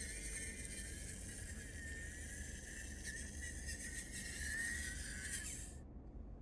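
Mini RC truck's small electric motor and gears whining, the pitch wavering up and down with the throttle, then cutting off suddenly near the end.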